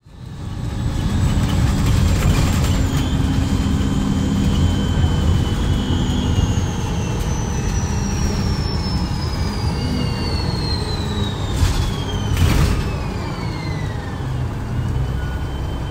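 Cummins ISBe220 diesel engine of a bus running under way, fading in at the start, with several high whines falling slowly in pitch and two short hisses about twelve seconds in. The engine is one the uploader calls trashed.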